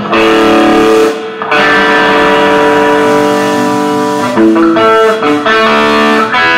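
Live electric guitars ringing out sustained chords through amplifiers, the chord restruck and changed about a second and a half in and again about four and a half seconds in.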